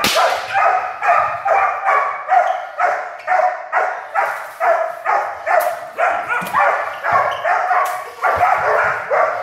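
Puppy barking over and over, about two high-pitched barks a second, worked up during protection training. A sharp crack comes at the very start.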